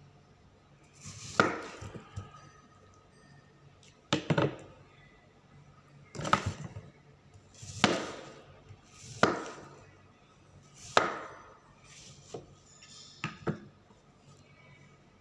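Kitchen knife slicing through a peeled red-fleshed dragon fruit on a wooden cutting board, one slow cut every second or two, each ending in a sharp knock of the blade on the board.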